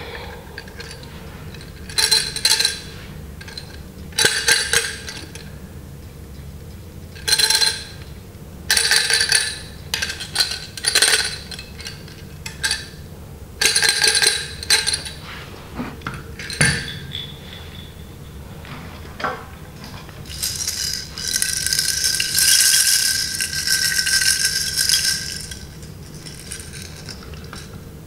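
Plastic baby rattle shaken by hand, its loose pieces clattering with a bright ringing tone. It comes in about eight short bursts, then is shaken steadily for about five seconds near the end.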